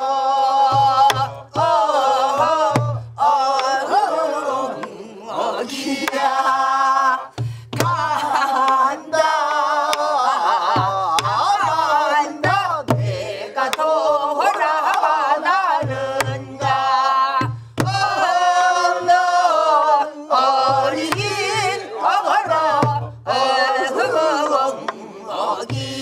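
Woman singing a Namdo folk song in the yukjabaegi style with heavy, wavering vibrato, accompanied by a buk barrel drum struck with a stick and the palm in clusters of deep thumps and sharp clicks.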